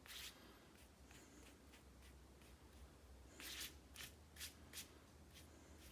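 Faint short swishes of a watercolour brush stroking across wet paper, several separate strokes with a small cluster about three and a half seconds in.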